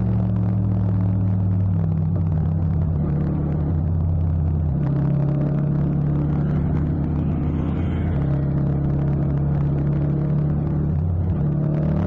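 Yamaha MT-07's 689 cc parallel-twin engine running under way at steady cruising revs, its pitch stepping down and back up a few times with throttle changes.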